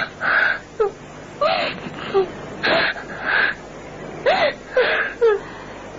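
A person crying: gasping, sobbing breaths, often two in quick succession, with short whimpering cries between them.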